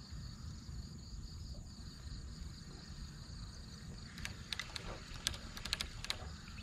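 Insects calling steadily over a low rumble, with a run of sharp clicks and taps in the second half.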